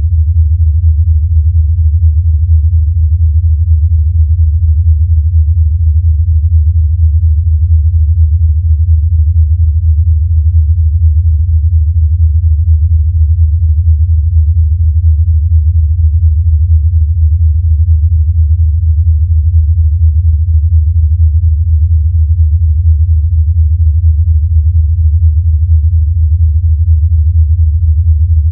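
Sonified signal of the black hole XTE J1650-500: a steady deep hum with a fast, even flutter, unchanging throughout.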